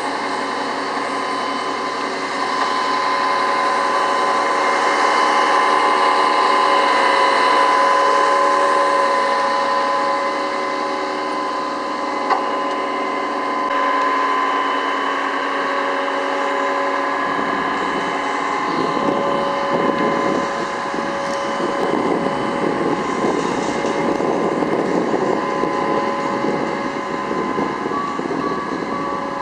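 Fire brigade aerial platform's engine and hydraulic drive running with a steady whine while the basket is raised. From a little over halfway in, wind buffets the microphone.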